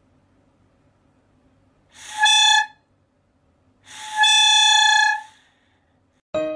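Plastic toy trumpet in a golden retriever's mouth sounding two toots at the same steady pitch, a short one and then a longer one of about a second and a half, the dog's breath pushed through it while a hand covers its nose.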